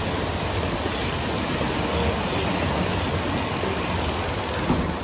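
O gauge model passenger cars rolling past on three-rail track: a steady running noise of metal wheels on rail.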